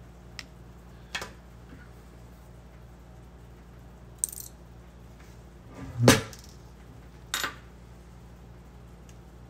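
A few sharp clicks and knocks of small model parts and a screwdriver being handled and set down on a hard work surface. The loudest is a single knock about six seconds in, over a steady low hum.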